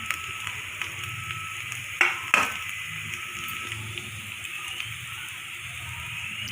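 Oil sizzling steadily as cutlets shallow-fry on a tawa, with two sharp knocks of a utensil against the pan about two seconds in.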